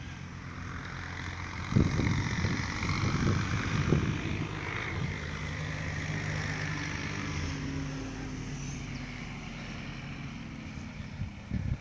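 Steady drone of a distant engine, its pitch rising slightly past the middle, with a few low bumps early on.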